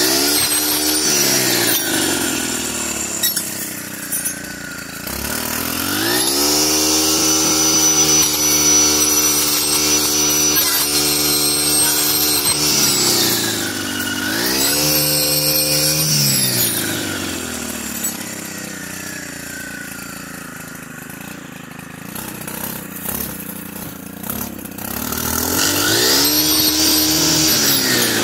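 Stihl FS 131 brush cutter's 4-MIX engine revving up to full throttle and dropping back to idle several times: one long high run, then a short burst, then a longer idle before it revs up again near the end. It is running a 7.9-inch saw blade through woody brush.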